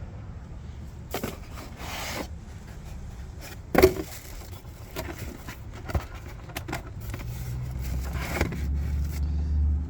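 Handling noises from unpacking and setting up a small propane heater: scrapes and rustles with a few knocks, the loudest a sharp knock about four seconds in, over a low steady rumble that gets louder near the end.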